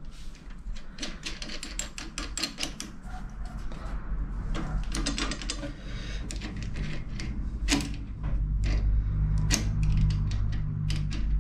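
Irregular runs of metallic clicks and clatter from a 7¼-inch gauge steam locomotive chassis as its steel wheel and brake linkage rods are worked by hand. A low hum joins in about eight seconds in.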